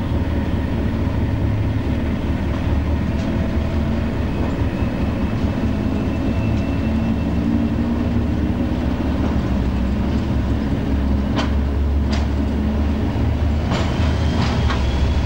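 Diesel locomotive running steadily, heard from inside its cab. Wheels knock over rail joints and pointwork, with a few sharp clicks about eleven seconds in and a cluster of them near the end.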